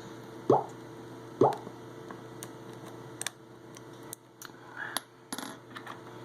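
Small hand tools and an opened phone being handled on a work surface. There are two short, hollow knocks about half a second and a second and a half in, then a scatter of light clicks.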